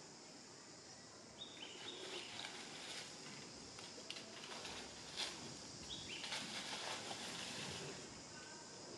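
Faint outdoor ambience: a steady high insect hiss, with scattered rustles and small clicks of dry leaves as a macaque picks food off the ground. The sharpest click comes about five seconds in, and a few short high chirps sound over it.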